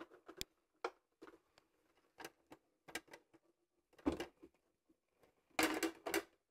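A plastic splash guard clicking and knocking against the head of a Kenwood Titanium Chef Baker XL stand mixer as it is being fitted. The short clicks are scattered, with a cluster of knocks about four seconds in and another near the end.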